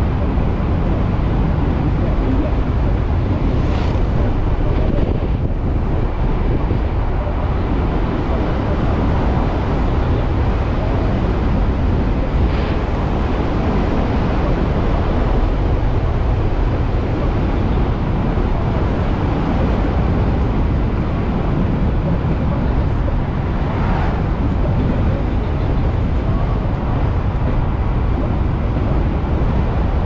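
Steady wind rush buffeting the microphone, with road and tyre noise, from an electric motorcycle riding at road speed. No engine note is heard.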